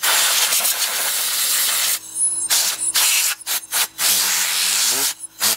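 Compressed-air blow gun blowing dust out of a TV's cooling fan and chassis: a loud rushing hiss of air, first one long blast of about two seconds, then a string of shorter bursts as the trigger is pulled and released.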